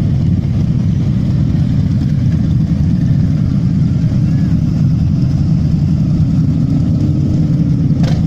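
Several big V-twin cruiser motorcycle engines running at low revs as the bikes idle and roll off, a steady dense low rumble. A short sharp click comes near the end.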